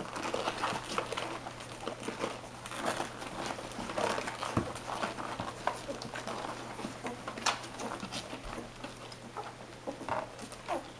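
Eleven-day-old labradoodle puppies nursing from their mother: many quick, irregular little suckling noises, several a second.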